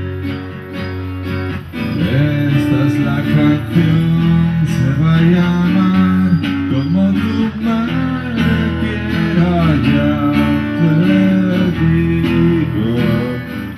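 Acoustic guitar strummed with a man singing over it; the voice comes in about two seconds in and carries a gliding melody.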